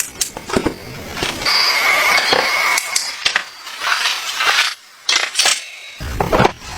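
A series of light knocks and clinks, as of small objects being handled, with a short squeak about two seconds in.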